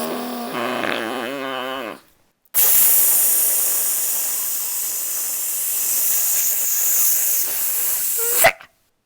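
A person's voice makes mock machine sound effects. First comes a held, pitched vocal tone for about two seconds that wobbles toward its end. After a brief pause comes a long hissing 'tssss' of about six seconds, like steam or spray, which ends in a short vocal blip.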